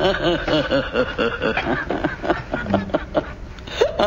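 Animated Regan Halloween prop's speaker playing a recorded cackling laugh: a rapid, evenly repeated 'ha' about four times a second, breaking into looser laughing sounds a little past halfway.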